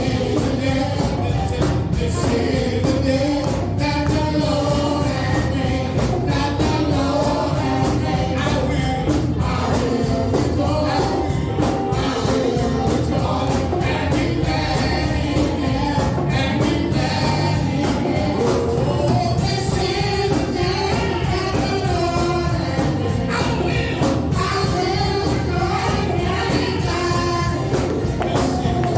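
Gospel praise-and-worship music: a choir singing over a full band with a steady beat and tambourine.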